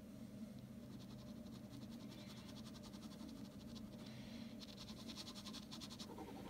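Ballpoint pen scratching on drawing paper in runs of quick, short strokes, faint over a low steady hum.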